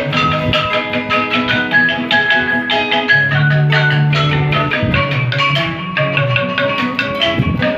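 A traditional Vietnamese band playing a lively tune of quick struck notes over other instruments, with a held low note in the middle.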